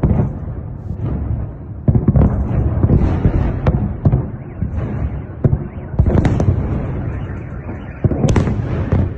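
Shells going off in rapid succession: dozens of explosions, with a heavy blast about every second, smaller cracks between them, and a continuous low rumble. The sharpest crack comes near the end.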